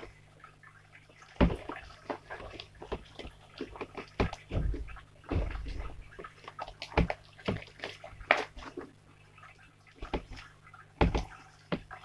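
Fluffy slime made with glue and shaving cream being squished and stretched by hand: irregular wet squelches and clicks, with a few sharper, louder pops.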